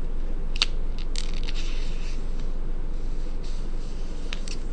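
A sheet of origami paper being handled, folded and creased by hand: a few short crisp crinkles and clicks of paper, two of them close together near the end, over a steady background hiss and low hum.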